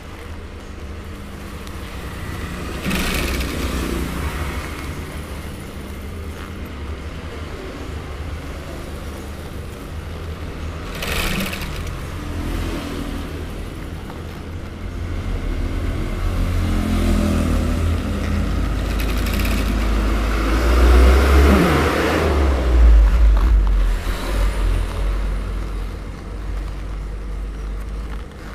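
Industrial sewing machine stitching a cowhide leather jacket, its table motor giving a steady low hum. Motor vehicles pass outside in several swells, the longest and loudest in the second half with a falling pitch.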